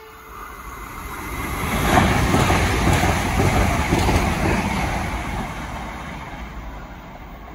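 Irish Rail 22000 Class InterCity Railcar diesel multiple unit passing through the station at speed. The wheel, rail and engine noise swells to a peak about two seconds in, stays loud for a few seconds, then fades as the train recedes.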